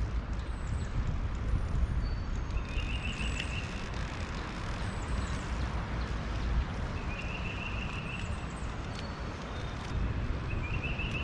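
Steady, fluttering low rumble of wind on the microphone over the open water, with a short high trill of quickly repeated notes heard three times, a few seconds apart, from a small animal calling.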